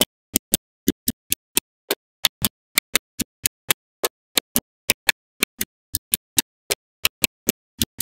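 Small magnetic balls clicking sharply together one after another as they are set into place, about four clicks a second at an uneven pace.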